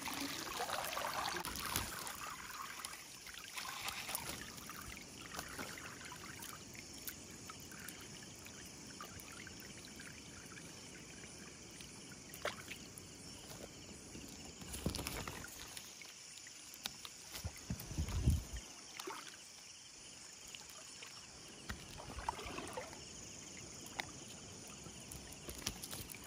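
Water dripping and trickling from a wet cast net into shallow water, with small splashes and light handling clicks as fish are picked from the mesh. A dull low thump about eighteen seconds in.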